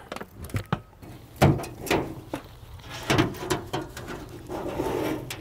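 Steel wire rack holding a whole roast pig being lifted and flipped inside a La Caja China roasting box: a series of irregular metal clanks and scrapes against the box.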